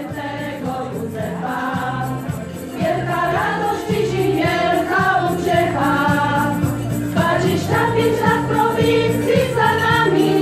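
Small choir of women singing together, accompanied by an electronic keyboard playing a bass line and a steady beat; it grows louder about three seconds in.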